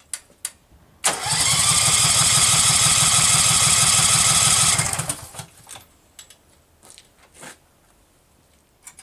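Case 446 garden tractor's engine cranked by its starter for about four seconds, a steady rhythmic chugging under the starter's whine, then cut off suddenly without the engine catching. It turns over but does not fire because the ignition is getting no spark.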